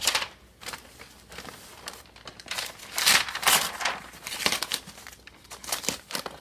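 Taped packing paper being pulled and torn off a package and crumpled: irregular bursts of rustling and tearing, loudest about halfway through.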